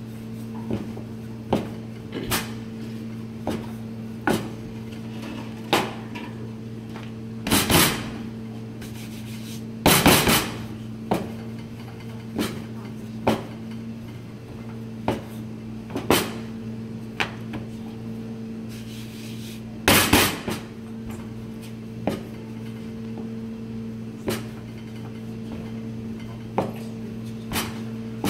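Wooden rolling pin knocking and clacking on a plastic cutting board as pasta dough is rolled out: irregular taps about once a second, with a few louder, longer clatters, over a steady low hum.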